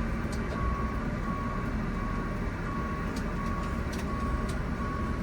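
Steady low rumble of a diesel-pusher motorhome rolling slowly, heard from inside the coach. Over it, an electronic beep repeats at one steady pitch about every three-quarters of a second.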